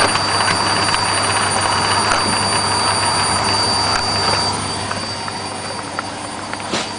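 Beko WMA642 washing machine spinning fast: a steady hum with a high-pitched whine that stops about four and a half seconds in, after which the machine runs on more quietly. A short click near the end.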